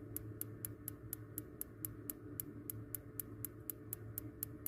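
Spark igniter on a Columbia gas hot-water boiler ticking, about four sharp clicks a second, as it arcs to light the burner. The burner has not yet caught.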